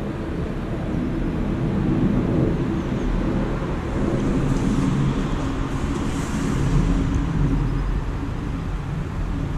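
Steady city road traffic, a low continuous rumble of cars that swells a little now and then.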